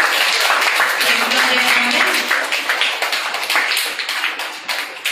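A group of people clapping, a dense patter of many hand claps that thins out and fades over the last couple of seconds.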